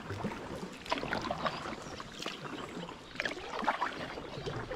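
Double-bladed kayak paddle strokes in canal water: a run of irregular small splashes and drips.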